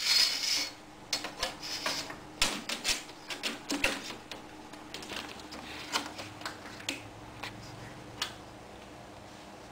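Thin PVC ceiling tile clicking and tapping against the ceiling grid as it is pushed up and settled into place: a quick run of light clicks for the first few seconds, then a few scattered ticks.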